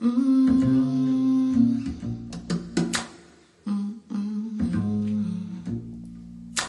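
Recorded music with plucked-string notes over a bass line, played back through B&W 805 D4 Signature bookshelf speakers driven by a Boulder 866 integrated amplifier. It cuts off abruptly at the end.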